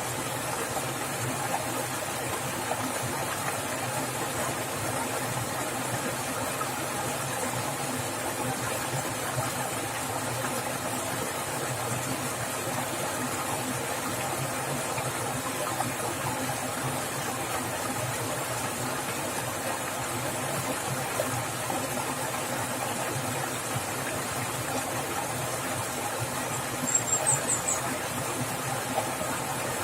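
Swift forest stream water splashing and rushing in a steady, unbroken wash. Near the end a brief high chirp cuts in once.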